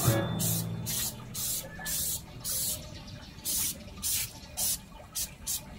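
Aerosol can of Armor All tire foam sprayed onto a car tyre in short, repeated hissing bursts, roughly two a second at uneven spacing.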